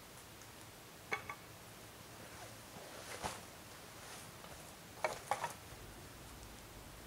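A leather gun case and its metal strap buckles being handled: a few short clicks and knocks with soft rustling, loudest in a quick cluster of clicks about five seconds in.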